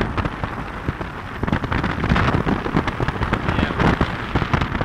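Wind buffeting the phone's microphone in the open bed of a moving pickup truck: a dense, irregular crackle of gusts over a steady low rumble of road and engine.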